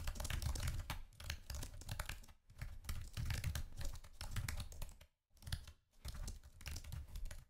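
Fast typing on a computer keyboard: a rapid run of key clicks broken by a few short pauses.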